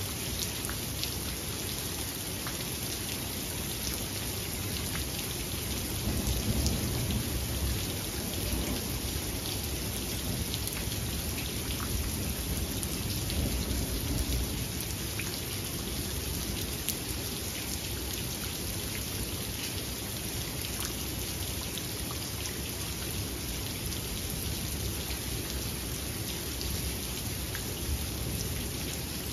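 Steady rain falling, a constant hiss full of small drop ticks. Low rumbles of distant thunder swell about six seconds in and again about halfway through.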